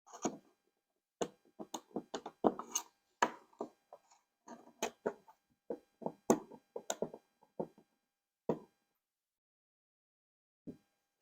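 Irregular clicks, taps and light knocks of a part and hand tools being handled and positioned on a workbench. They come thick for the first eight seconds or so, then stop, with one last tap near the end.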